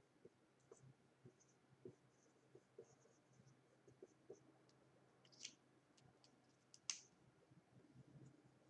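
Faint scratching of a marker writing on a whiteboard, with a couple of sharper clicks about five and seven seconds in.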